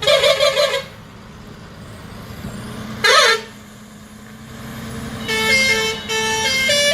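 Horn-like toots over a steady low engine hum: a warbling honk at the start and a short one that dips and rises in pitch about three seconds in. A tune of stepped notes begins about five seconds in.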